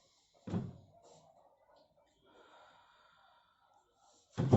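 A patient breathing deeply on cue during a chiropractic adjustment: a sharp breath about half a second in, then a faint drawn-out breath, and a sudden loud burst of sound just before the end.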